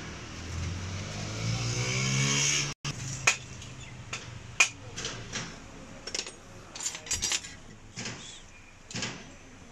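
A motor runs and rises steadily in pitch for nearly three seconds, then cuts off abruptly. After that come light metal clinks and taps, a few seconds apart, as a screwdriver and fingers work inside the governor housing of a Fiat 640 tractor's diesel injection pump clamped in a vise.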